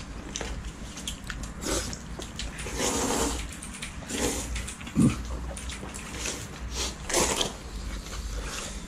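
People slurping and chewing noodles: short wet slurps, several times, with one brief low vocal sound about five seconds in, the loudest moment.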